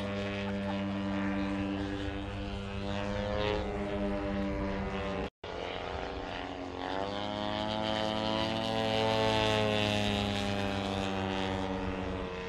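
Radio-controlled aerobatic model airplane's engine and propeller running in flight, the note shifting in pitch with the throttle. The sound drops out briefly about five seconds in, then the note dips and climbs again a second or two later.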